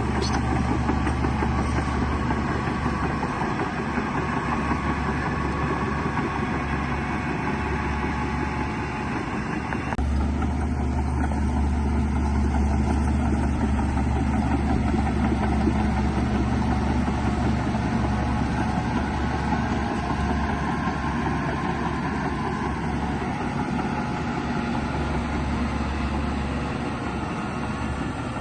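Heavy diesel engines of earthmoving machinery running steadily with a deep, constant hum; the sound changes abruptly about ten seconds in.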